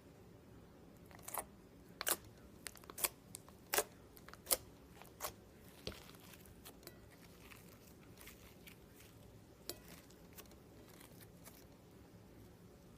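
Slime being squeezed and played with by hand, giving a series of sharp crackles and pops. They are loudest and come about every 0.7 s for the first six seconds, then grow sparser and fainter.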